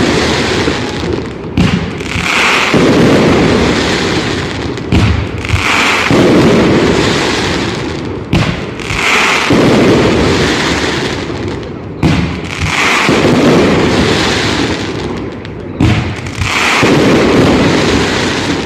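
Fireworks display: a sharp bang every three to four seconds, each followed by a loud, crackling burst that fades over a couple of seconds.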